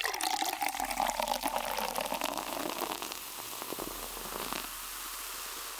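Carbonated soda pouring and fizzing, a dense crackle of bubbles that keeps up steadily.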